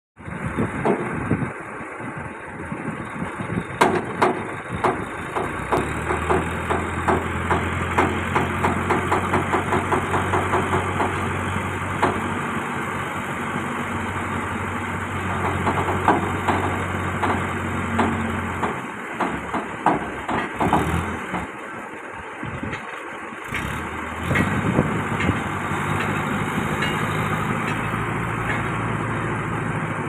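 Escorts Hydra 12 pick-and-carry crane's diesel engine running steadily under load as it hoists a piling rig unit, with repeated sharp knocks and clanks over it. The engine hum drops away for a few seconds about two-thirds of the way through, then picks up again.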